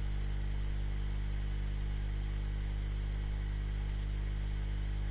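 Steady low electrical hum with a stack of evenly spaced overtones, under a constant hiss: background hum and noise picked up by the recording.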